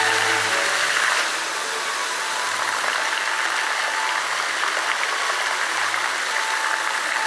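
Musical fountain jets spraying and splashing into the pool: a steady rush of falling water. Faint music fades out about a second in, and a few faint notes come back later.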